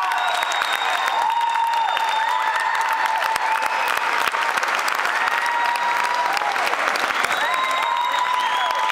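Audience applauding steadily, with held calls or tones riding over the clapping.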